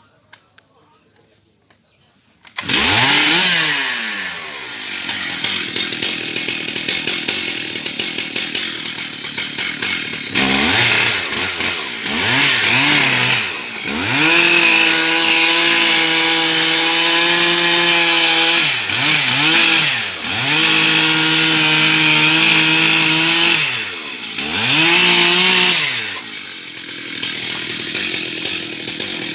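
Stihl MS 880 large two-stroke chainsaw coming in suddenly about two and a half seconds in, then running and being throttled up several times into steady high-revving runs of a few seconds each, dropping back between them.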